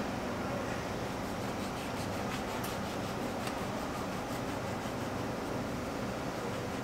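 A kitchen knife sawing through a croissant's flaky crust, giving faint scratchy crackles over a steady background hiss.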